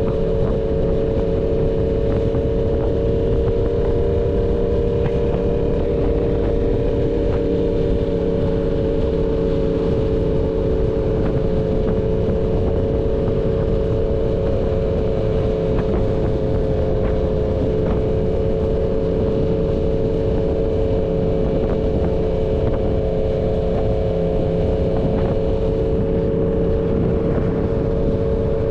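Yamaha MT-10's crossplane inline-four engine running through an SC Project full-system exhaust, held at steady revs with its pitch barely changing.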